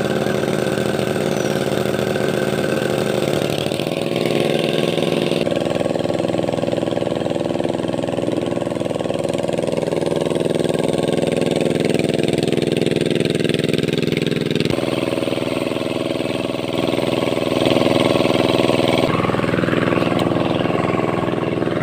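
Two-wheel hand tractor engine running steadily. Its note changes abruptly a few times, about a third of the way in, past the middle and near the end.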